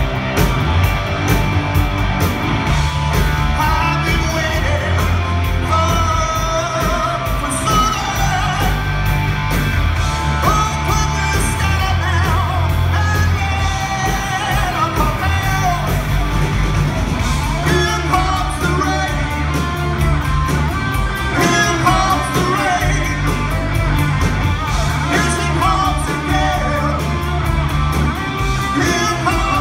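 Live rock band playing: a male lead singer over two electric guitars, electric bass and drums, loud and continuous.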